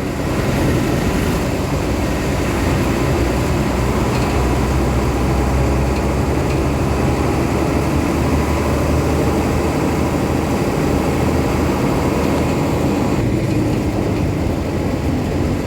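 Steady rumble of a vehicle's engine and road noise while driving along a road. The higher sounds ease off a little near the end.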